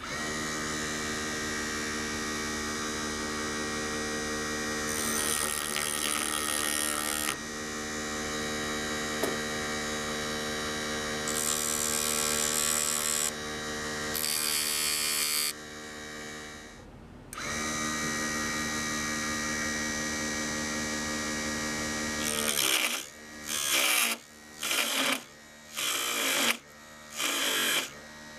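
Mini bead lathe's small electric motor running with a steady hum, spinning a poplar dowel, with stretches of scraping hiss as a hand-held tool cuts into the turning wood. It drops out briefly past the middle, and near the end the sound comes and goes in short bursts about once a second.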